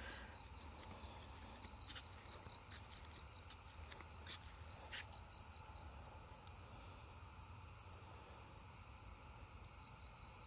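Crickets chirping faintly in a rapid, even pulse of one high note, with a few faint clicks and a low rumble underneath.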